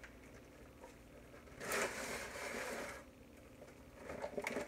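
Knife crunching through the crust of a loaf of garlic bread for about a second, followed by a few light clicks near the end.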